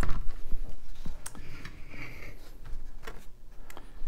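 Hands handling painting gear on a painting board: a few light clicks and knocks with soft rustling, as a sheet of watercolor paper is laid in place.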